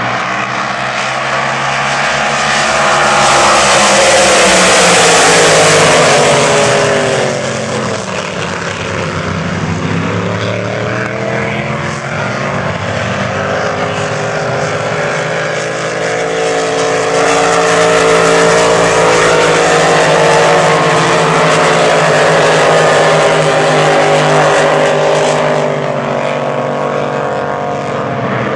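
Several supercharged unlimited displacement class race boats running flat out together, a dense multi-engine howl whose pitch slides down and back up as the boats pass. It is loudest about four to six seconds in and again from about seventeen to twenty-five seconds in.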